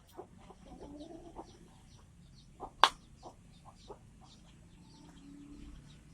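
Faint bird chirps with scattered light clicks, and one sharp click about three seconds in.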